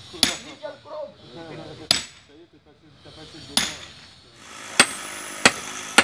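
Sledgehammer blows driving metal stakes into the ground, each a sharp strike with a short ring. Three slow blows come about a second and a half apart, then, about four and a half seconds in, quicker blows follow about two-thirds of a second apart.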